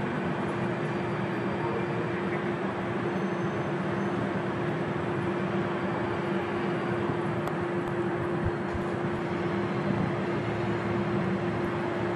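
Steady background noise: an even rushing hiss with a constant low hum.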